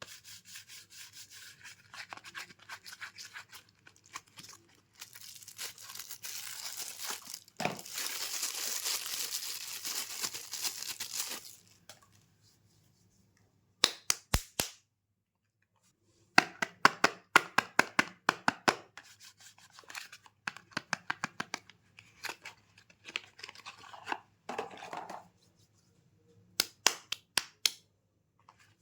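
Soap being unboxed by hand: a long stretch of tearing and crinkling of the wrapper, then runs of quick taps and clicks on the packaging, with short pauses between them.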